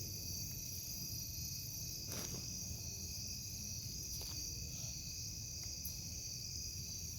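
Steady, high-pitched chorus of night insects such as crickets, with a couple of faint scuffs about two and four seconds in.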